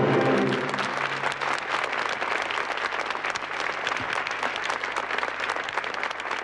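The band's closing chord fades out within the first second, then a studio audience applauds steadily.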